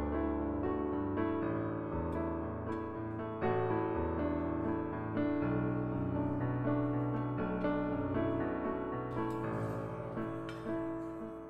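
Soft background piano music, a slow melody over held chords.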